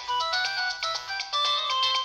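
Nokia 3220 ringtone playing: a quick synthesized melody in several voices over a repeating bass figure.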